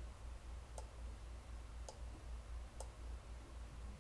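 Three separate computer mouse clicks over a steady low electrical hum, the clicks coming while a circuit is being wired on screen.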